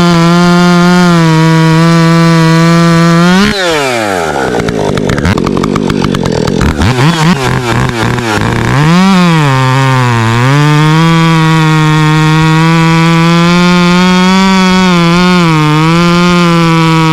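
Husqvarna professional two-stroke chainsaw running at full throttle in a cut, dropping to a low idle about three and a half seconds in, then revving back up near nine seconds and holding high again.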